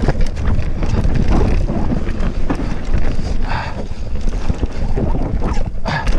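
Wind buffeting the microphone over the rumble of a Cube Stereo mountain bike's tyres on a dirt trail, with frequent rattles and knocks from the bike over bumps.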